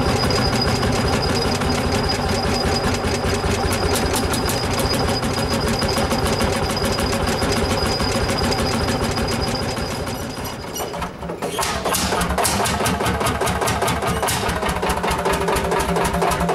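Single-cylinder two-stroke hot-bulb tractor engine running with a fast, even exhaust beat. About eleven seconds in the sound dips briefly and a different engine beat takes over.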